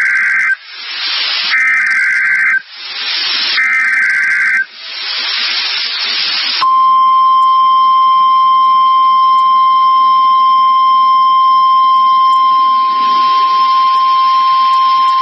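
NOAA Weather Radio Emergency Alert System signal. First come three short bursts of screeching two-tone SAME digital header data, each followed by a hiss of radio static. Then, from about six and a half seconds in, the steady single-pitched 1050 Hz warning alert tone that announces a new warning message.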